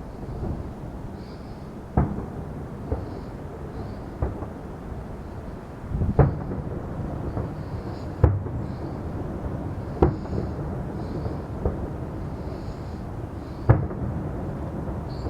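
Fireworks shells bursting overhead: about nine sharp booms, irregularly spaced one to two seconds apart, each trailing a short rumbling echo, over a steady low rumble.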